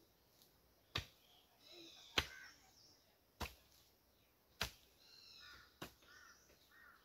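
A rambi, a Kashmiri flat-bladed hand hoe, striking into the soil in regular digging blows, about six sharp strikes a little over a second apart. Birds chirp between the strikes.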